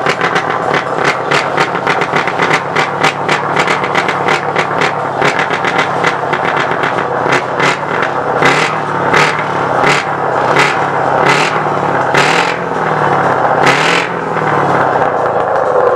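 Scania V8 truck engine being revved hard through loud open exhaust stacks, a rapid crackle of sharp exhaust blasts that slows to separate blips under a second apart, with revs rising and falling near the end.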